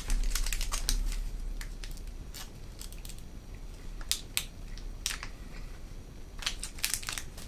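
Plastic chocolate-bar wrapper crinkling and crackling in the hands, in scattered short snaps at irregular times.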